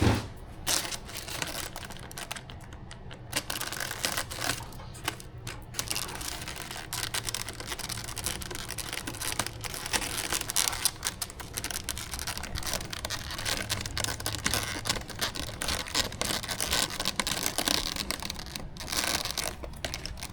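Hands rustling plastic packaging and clicking and scraping small plastic model parts on a table, a dense run of crinkles and light clicks with no pause.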